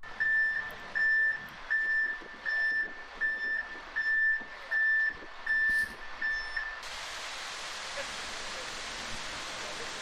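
Concrete mixer truck's reversing alarm beeping about twice a second while the truck backs up, stopping about seven seconds in. A steady rushing hiss follows.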